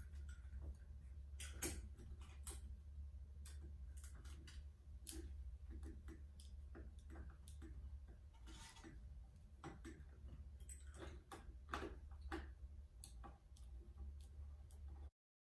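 Faint, irregular clicks and ticks of a hand screwdriver and small screws against a ceiling fan's metal light-kit housing as the screws are driven in, over a low steady hum.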